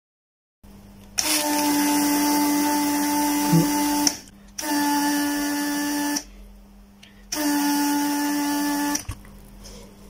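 Vacuum pump of an electric desoldering gun switched on three times, running with a steady hum and hiss for about three seconds, then about a second and a half, then nearly two seconds, each time cutting off sharply. It is sucking molten solder out of a USB charging port's through-hole mounting pins.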